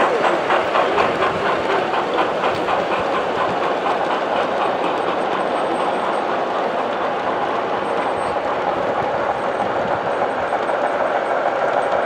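Model train wheels clicking over the rail joints in a quick even rhythm, about three or four clicks a second, blending into a steady rolling sound after a few seconds.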